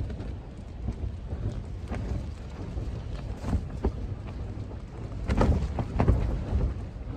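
Strong gusting wind buffeting an MSR Elixir 2 tent: the flysheet flaps and crackles over a low wind rumble. The wind gusts hardest about five to six seconds in.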